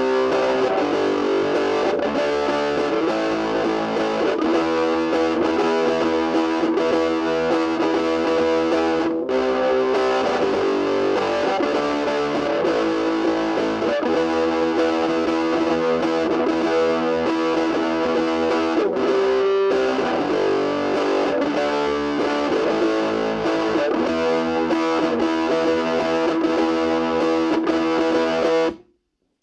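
Electric guitar played through a Cornel Fire Legend GA15 practice amp on its overdrive channel, giving a distorted tone. The playing runs on with two brief breaks, about a third and two-thirds of the way in, and stops abruptly near the end.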